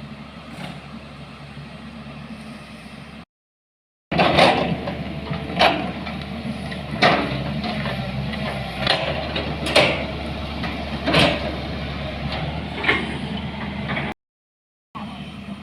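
A motor vehicle running with repeated loud clunks and rattles, about one every second or so, typical of driving over a rough road. Two abrupt cuts break up the sound.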